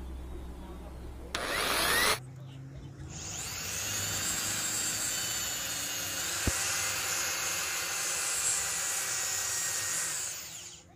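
Corded electric hand drill boring holes in PVC pipe: a short loud burst of drilling about a second and a half in, then the drill motor spinning up about three seconds in and running steadily with a high whine until it stops near the end.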